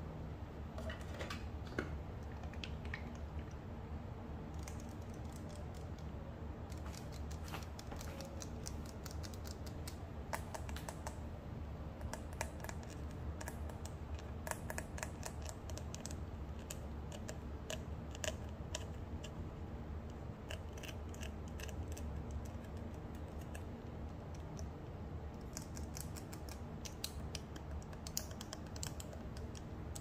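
Fingernails tapping and clicking on skincare bottles, their metal caps and the plastic packaging tray. The taps come in a steady run of small, irregular clicks over a low, even hum.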